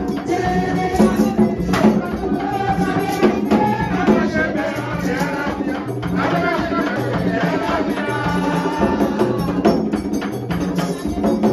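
Vodou ceremonial music: drums and shaken rattles keep a steady beat under singing.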